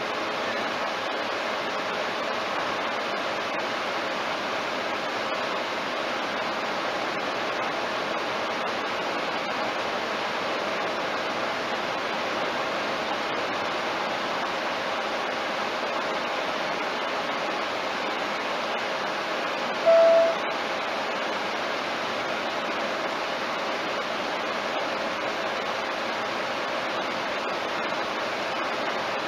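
Steady road and wind noise inside a car's cabin at highway speed, around 90 km/h. A short beep sounds once, about two-thirds of the way through.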